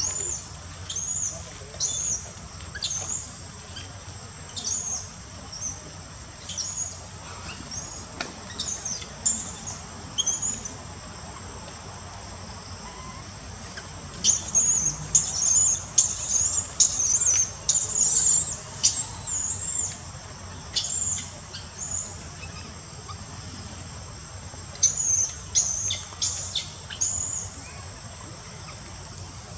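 Steady high-pitched insect drone, with short high chirping calls repeating roughly once a second and coming thickest and loudest in a run from about fourteen to twenty seconds in.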